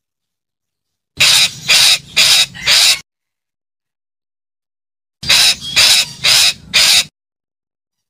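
Red-breasted parakeet giving harsh, screechy calls in two quick bouts of about four calls each, a couple of seconds apart.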